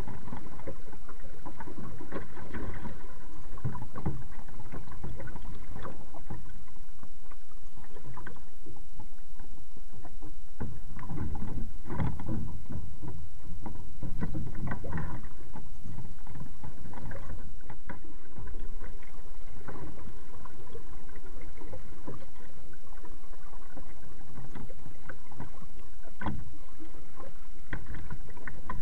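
Kayak paddling: a double-bladed paddle dipping and splashing in the water stroke after stroke, over a steady wash of water against the hull.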